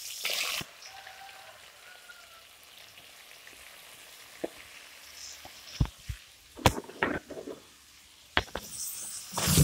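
Sliced onions dropping into hot oil in an iron kadai: a loud burst of sizzling as they hit, settling into a quiet steady sizzle as they fry. Several sharp knocks and clicks of a plate and utensils against the pan come in the second half, the loudest near the end.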